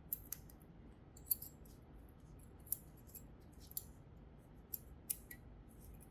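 Light, irregular metallic clicks and clinks, about eight over six seconds, as of small metal parts or hand tools being handled.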